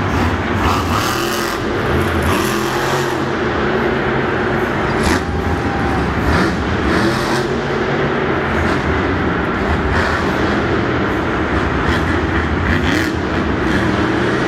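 Monster truck's supercharged methanol V8 engine running loud and revving up and down as the truck drives the dirt course.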